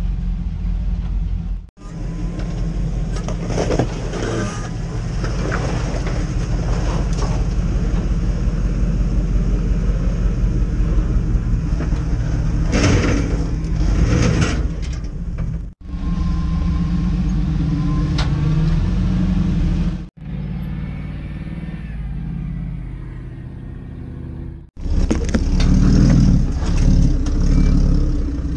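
Off-road 4x4 engines running and revving at low speed while crawling over rock, in several short clips that cut off abruptly between them.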